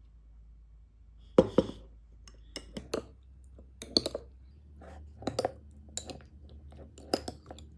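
Metal spoon stirring yogurt and kiwi in a stemmed glass, clinking against the glass at irregular intervals. The clinks start about a second and a half in, and that first one is the loudest.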